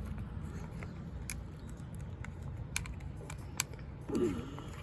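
Scattered light clicks and ticks of a straightened paper clip being worked into the release hole of a Eufy video doorbell, over a low steady background rumble. A brief vocal hum about four seconds in.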